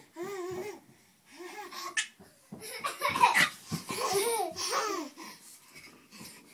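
Small children laughing: a string of short baby laughs and giggles, loudest in the middle.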